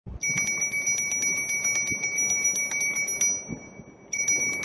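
Bicycle bell rung rapidly, a fast ding-ding trill of about seven strikes a second, in one long run and then a shorter second run after a pause of about a second.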